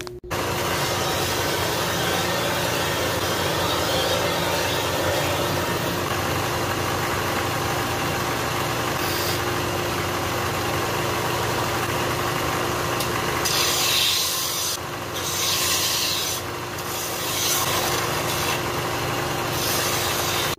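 Bench belt sander running with a steady motor hum while a wooden canoe paddle shaft is pressed against its 60-grit belt to ease the edges. Several louder, harsher rasping passes come in the last third.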